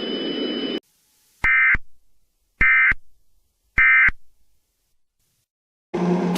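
Emergency Alert System end-of-message data bursts: three short, identical buzzy tone bursts about a second apart, marking the end of the alert. Before them, a steady noisy background cuts off suddenly under a second in.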